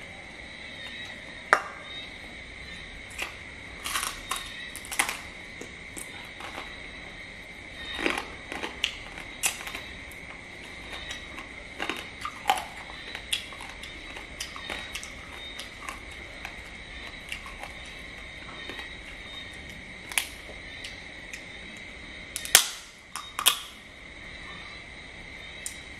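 Close-up eating sounds of crab: shells cracking and crunching as pieces are bitten and chewed, in irregular sharp clicks with the loudest cracks near the end. A steady high chirring of crickets runs underneath.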